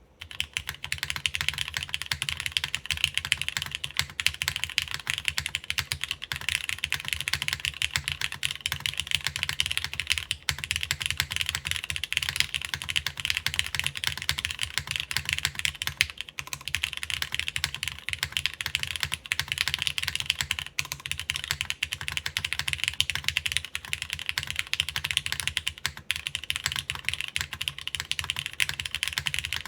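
Continuous typing on a Plywrks Spyder TKL mechanical keyboard in top-mount configuration. The keystrokes are dense clicks from lubed Cherry MX Black clear-top (Nixie) linear switches on an aluminum half plate with GMK keycaps and no foam.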